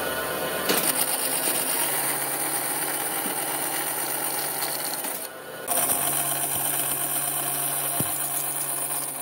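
Bandsaw running and cutting slots into the end of a hardwood rail, the blade cutting steadily through the wood. The sound drops briefly just past halfway, then resumes with the next cut.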